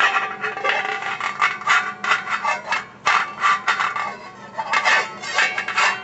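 Metal pot lid played as percussion with a wire whisk: a quick, irregular run of strikes and scrapes, each with a short metallic ring.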